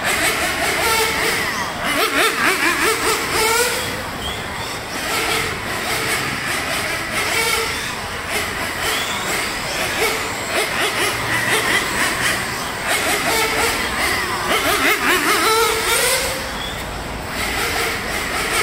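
Radio-controlled nitro touring cars, a Serpent 748 WC among them, lapping a track: their small high-revving engines climb and drop in pitch over and over as they accelerate down the straights and lift off for the corners.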